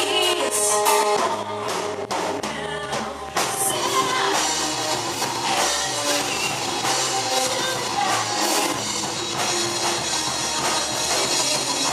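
Live rock band playing, with a singer, drums and guitar.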